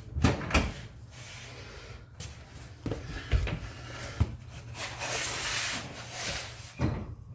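Scattered metal knocks and clunks, about six, as a CV axle is tapped and worked into a rear differential to seat it. A rushing noise lasts about a second and a half past the middle.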